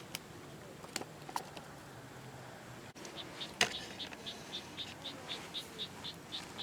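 An insect chirping in short, evenly spaced high-pitched pulses, about four a second, starting about three seconds in, with a few sharp clicks before it and one louder click just after it begins.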